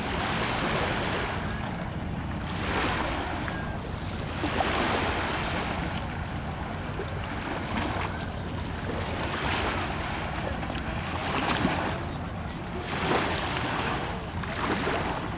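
Steady rush of wind and moving water, swelling in gusts every couple of seconds, over a low steady hum.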